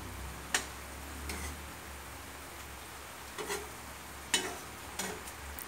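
A metal spatula clinking and scraping against a frying pan as pieces of fried tofu are turned in sauce: several sharp clinks spread through, the loudest about half a second and four seconds in, over a faint steady hiss.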